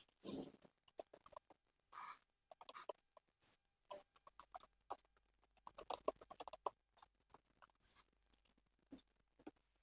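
Keys of a custom-built mechanical keyboard clicking faintly and irregularly, in scattered clusters of keystrokes.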